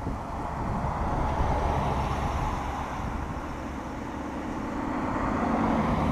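Cars passing on a residential street: engine and tyre noise that swells as one goes by about a second and a half in, then again, louder, as a second car passes close near the end.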